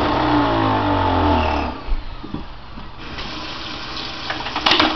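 Electric centrifugal juicer's motor running down after being switched off, its hum falling in pitch and stopping about two seconds in. Then a few knocks and clicks as the juicer's plastic parts are handled.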